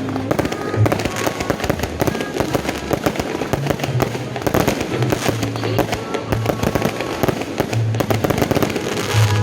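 Fireworks going off in rapid succession: a dense, continuous stream of cracks and bangs, with music playing underneath.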